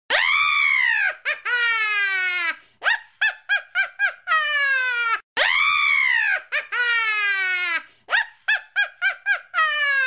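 Evil witch cackle sound effect, a woman's voice: a high shriek that rises and falls, a long falling note, a quick run of short 'ha-ha' bursts at about five a second, and another long falling note. The whole cackle plays twice back to back.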